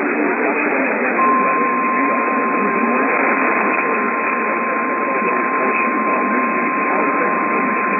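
Steady radio static hiss. About a second in, a single unbroken alert tone comes in and holds over it, typical of the NOAA Weather Radio 1050 Hz warning alarm tone.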